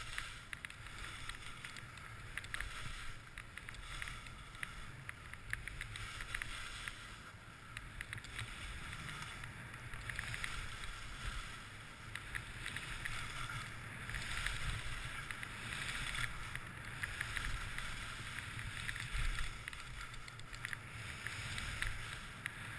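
Skis sliding and carving over packed snow: a steady swishing hiss with fine crackling scrapes from the edges, rising and falling through the turns, over a low wind rumble on the microphone.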